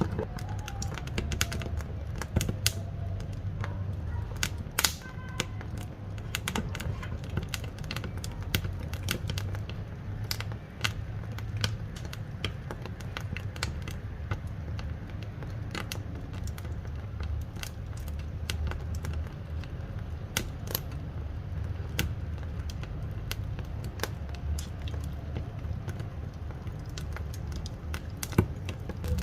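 Firewood burning in a wood-fired cooking stove: dense, irregular sharp crackles and pops over a steady low rumble of the fire.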